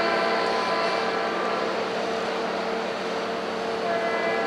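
Diesel locomotive horn sounding two chords of about a second each, near the start and near the end, over a steady noisy rumble with a constant hum.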